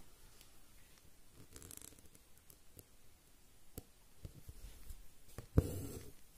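Embroidery needle and stranded thread being drawn through cotton fabric stretched in a hoop: faint rasps of thread pulling through the cloth and small ticks, with a sharp knock and a louder rasp about five and a half seconds in.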